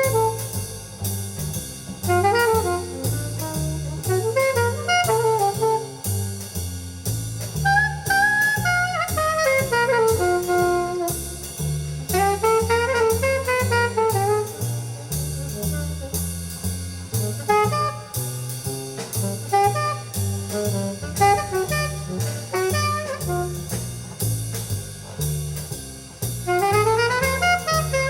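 Jazz with a saxophone lead over a walking bass and drum kit, played through a modified Fisher CA-800 amplifier and its speakers as a test of the amp's sound.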